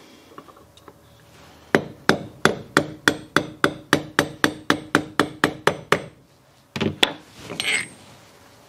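A hammer rapidly taps the broach guide out of a pulley's bore: about five ringing metal-on-metal blows a second for some four seconds. After a pause come two more blows and a short scraping sound. The guide is a firm fit and slow to come free.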